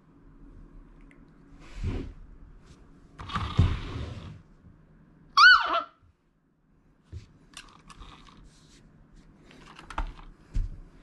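Plastic clicks, knocks and scuffling from a toy tuk-tuk being nosed by a Shiba Inu puppy and touched by a hand on carpet. About halfway through there is one short, high, falling whine.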